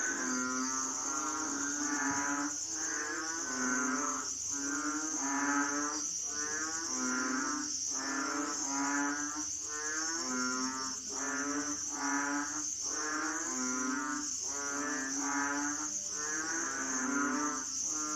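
A chorus of Asian frogs calling, several animals overlapping in a steady run of calls about once a second. A continuous high-pitched insect buzz, like crickets, runs underneath.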